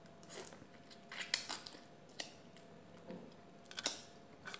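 Scattered small crisp clicks and crackles of a cooked prawn's shell being cracked and picked apart with the fingers, with some biting and chewing.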